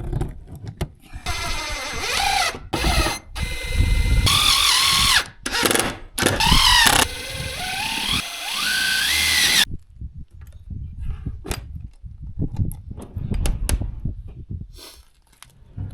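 Power drill running in several bursts over about eight seconds, its pitch rising and falling as it speeds up and slows, climbing at the last burst. It is followed by scattered light knocks of handling.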